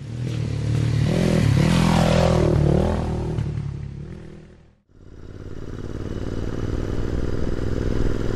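A short intro sting: a hissing sweep with an engine-like pitch that rises and falls, fading out about two-thirds of the way through. Then a motorcycle engine running steadily as the bike rides along, growing louder toward the end.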